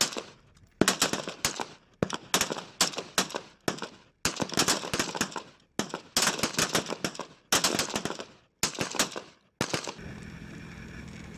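Several rifles on a firing line firing rapid, overlapping shots in irregular clusters. The shooting stops about ten seconds in, leaving a steady low hum.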